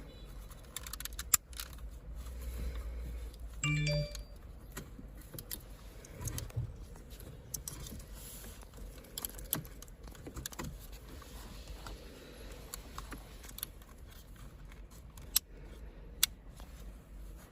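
Scattered clicks and rattles of plastic wiring connectors and loose cables being handled behind a car's dashboard panel, with a few sharper snaps.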